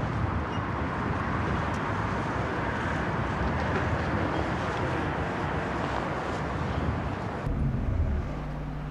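City street traffic noise, a steady rush of cars. About seven and a half seconds in, it changes to the lower, duller hum heard inside a moving car.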